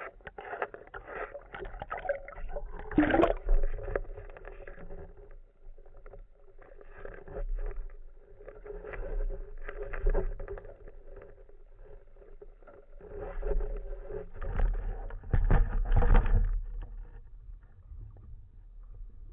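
Water rushing and bubbling against an underwater camera housing as it moves near the surface, coming in swells with a sharper bubbly burst about 3 seconds in and the loudest stretch from about 13 to 16 seconds in, over a steady low hum.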